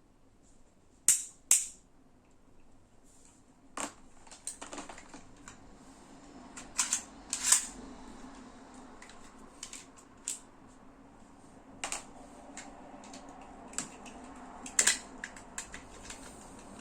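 Irregular sharp clicks and snaps of hard plastic toy parts being handled, about a dozen, the loudest a pair about a second in and another cluster midway, over a faint steady hum.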